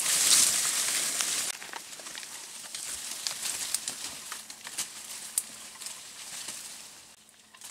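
Leaves and branches rustling as a person pushes through dense undergrowth, loudest in the first second and a half, then scattered snaps and crackles of twigs that fade toward the end.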